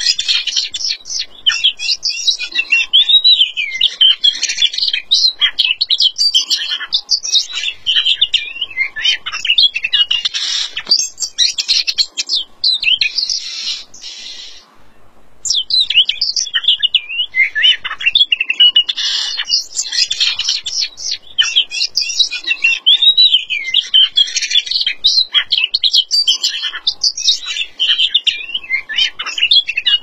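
Oriental magpie-robin singing loudly: a long run of rapid, varied whistled phrases, breaking off briefly about halfway through.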